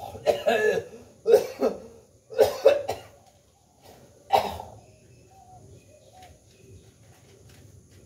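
A person coughing hard in several quick bursts over the first three seconds, then once more a little over four seconds in.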